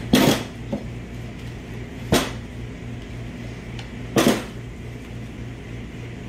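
Steel clutch drum and clutch plates of a 6L80 automatic transmission knocking against a wooden workbench as they are handled: three sharp knocks about two seconds apart, over a steady low hum.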